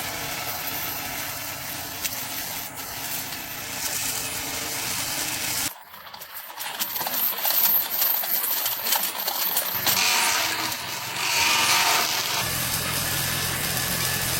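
Remote-control lawn mower running and cutting grass. The sound cuts off abruptly about six seconds in and gives way to a clattering stretch of many short clicks and rattles, then a louder steady run from about ten seconds in.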